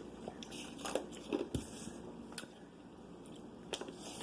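Close-miked chewing and mouth sounds of someone eating fried food, with a handful of short, soft smacks and crunches scattered through.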